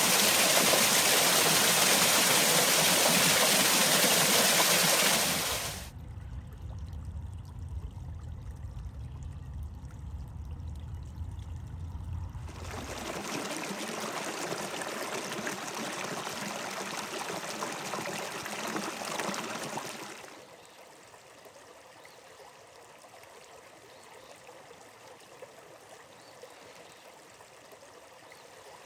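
Running water from streams in several cut-together recordings. A loud full rush gives way about six seconds in to a lower, deeper flow, then a brighter flow from about twelve seconds, then a quieter trickling flow from about twenty seconds.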